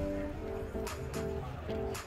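Background music: held melodic notes changing every fraction of a second over regular drum hits.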